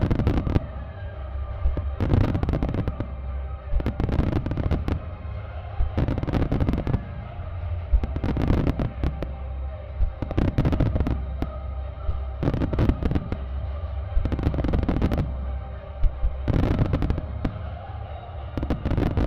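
Fireworks starmine firing in volleys about every two seconds: fans of shells and comets launching and bursting with dense crackle. Show music plays steadily underneath.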